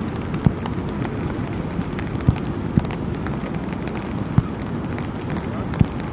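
Fireworks going off: five short, dull booms at uneven intervals, with faint crackling, over steady background noise.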